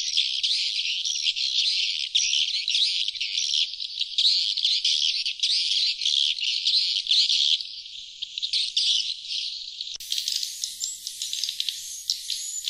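Sriti (glossy swiftlets) twittering in a dense, high-pitched chatter: the 'outside call' lure recording played to draw wild swiftlets in to roost and nest. About ten seconds in the sound changes suddenly to a thinner, hissier twittering.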